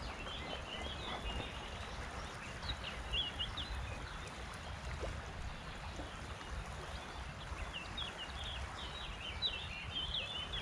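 Small birds chirping and twittering in short bursts, near the start, in the middle and again near the end, over a steady low outdoor rumble.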